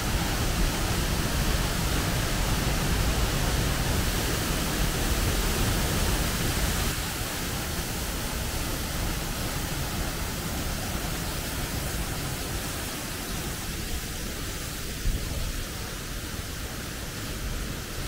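Waterfall splashing into a rocky pool: a steady rush of falling water that grows a little quieter in the second half.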